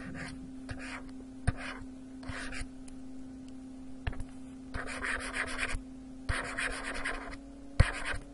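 A stylus scratching on a pen tablet in short strokes, with two longer stretches of scratching around five and seven seconds in and a few sharp taps, the loudest near the end. A steady low hum runs underneath.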